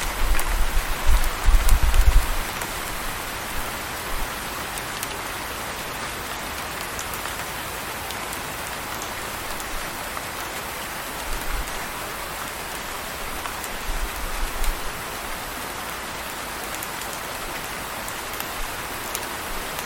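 Steady rain falling, an even hiss with faint scattered drop ticks. Low rumbles come through a few times, the strongest in the first two seconds.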